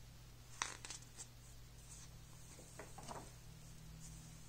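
A picture book's page being turned by hand: a sharp tap about half a second in, a few small clicks, then short, soft paper rustles near the middle.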